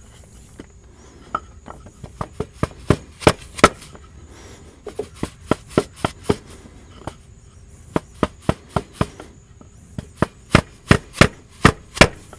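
Stub output shaft being tapped gently into a GM 4T40E/4T45E transaxle, sharp light knocks in four runs of quick taps with short pauses between, driving the shaft in until it seats on its detent.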